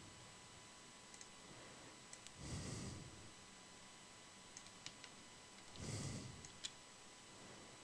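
Near silence, with a few faint computer mouse clicks scattered through it and two soft rushes of noise about two and a half and six seconds in.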